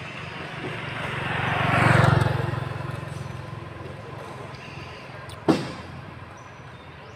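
A vehicle passing on the road, its engine and tyre noise swelling to its loudest about two seconds in and fading away. A short sharp sound cuts in about five and a half seconds in.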